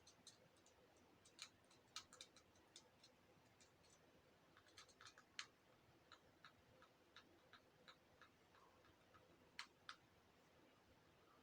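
Faint, irregular clicks and small pops from fidget toys being handled and pressed, coming in loose clusters, with two slightly louder clicks close together near the end.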